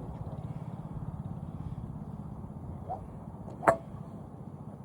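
A single sharp crack of a golf club striking a ball, about three-quarters of the way through, over a steady low rumble.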